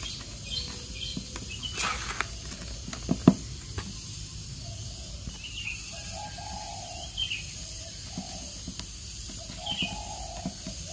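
Soft scraping and scattered small clicks as hands and a paintbrush work loose coco-peat potting mix around a coconut, with one sharper click about three seconds in. Birds chirp briefly now and then in the background.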